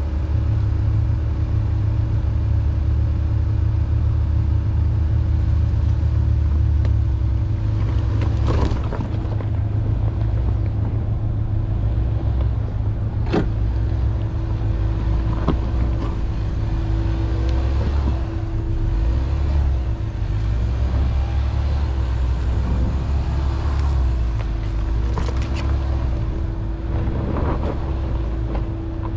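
Ford Bronco Sport driving over a rocky dirt trail, heard from a camera mounted on the outside of the car: a steady low rumble of engine and tyres with a constant hum, broken by a few sharp knocks.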